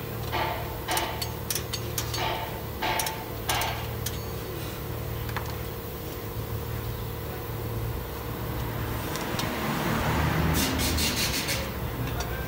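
Metal scrapes and clicks from a screwdriver and hands working on a rear drum brake's shoes and springs: several short strokes in the first four seconds and a quick run of clicks near the end, over a steady low hum. A rushing noise swells about ten seconds in.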